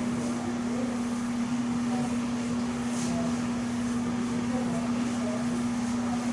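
A steady low machine hum, with the soft swishing of a chalkboard eraser wiping chalk off the board.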